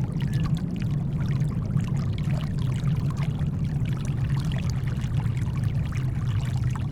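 Shallow water lapping and splashing at a shoreline, a dense run of small splashes and trickles, laid over a steady, deep rumble of brown noise. It keeps an even level, with no rising and breaking waves.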